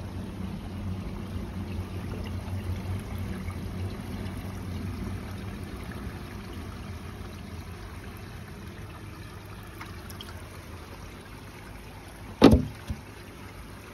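Steady running-water noise from a koi pond with a faint low hum, with a single thump near the end.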